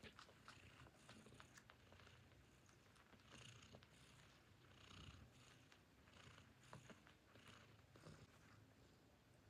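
Faint cat purring from a nursing mother cat and her newborn kittens, pulsing in an even rhythm of about two breaths a second, with small soft clicks.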